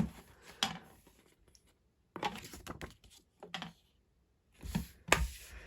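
Handling noises: small clicks and rustles in a few short clusters, with quiet gaps between.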